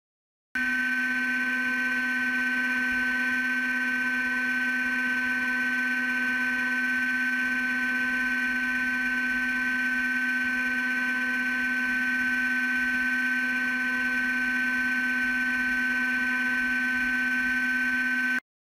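Small high-speed drill spindle motor running steadily with a constant whine, cutting in about half a second in and cutting off abruptly near the end.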